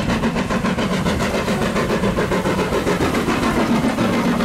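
Steam locomotive dressed as Thomas the Tank Engine running along the track, its exhaust chuffing in a quick, steady rhythm.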